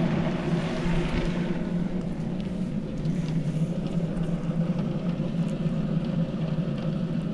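The hiss of the hose's water jet dies away over the first couple of seconds after the spray is shut off. A steady low hum carries on unchanged underneath.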